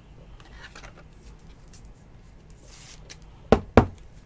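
Trading cards and plastic card holders handled on a table: faint rustling and sliding, then two sharp clicks about a third of a second apart near the end.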